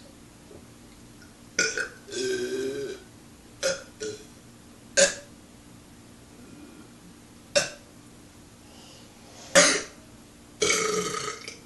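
A man burping on command, a run of separate belches: several short, sharp ones and two longer, drawn-out ones, about two seconds in and near the end.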